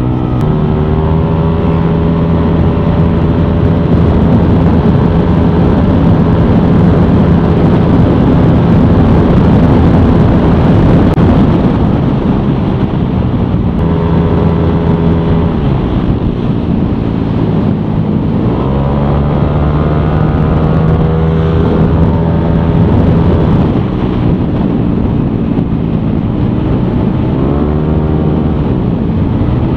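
Yamaha Aerox scooter's single-cylinder engine, bored up to 200cc and fitted with an MTRT EVO 2 stainless aftermarket exhaust, running under way. The engine note holds steady for long stretches, then dips and climbs again several times as the throttle is eased off and reopened.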